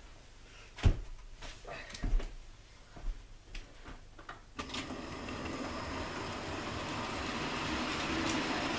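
A few knocks and clatters, then from about four and a half seconds in the steady whirr of a Hornby K1 OO-gauge model locomotive's motor and wheels running along the track as it hauls a train, slowly getting louder.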